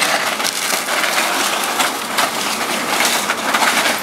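Excavator bucket crushing and tearing through a fire-charred wooden house, with timbers splintering and cracking over and over.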